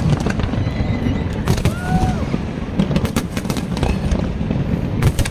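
Fireworks going off: many sharp bangs and crackles at irregular intervals, thickest around three seconds in and near the end, over a steady low rumble.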